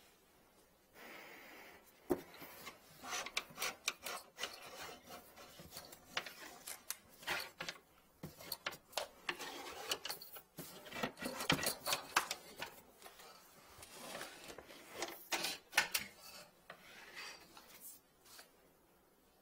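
Yellow push cable of a drain inspection camera being fed by hand off its reel, rubbing and scraping through a cotton-gloved hand, with irregular clicks and scrapes.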